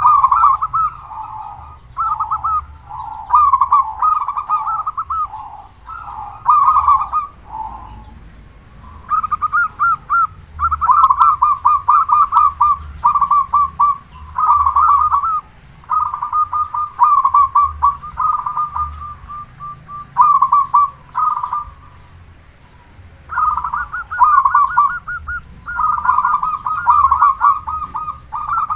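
Zebra dove (perkutut) cooing: rolling, stuttering coo phrases, each about a second long, repeated in quick succession with short gaps and one longer pause about three-quarters of the way in.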